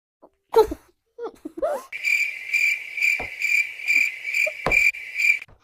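Cricket chirping: a high, steady trill pulsing a little over twice a second, starting about two seconds in and stopping just before the end. A thump comes before it, and two sharp knocks fall during it.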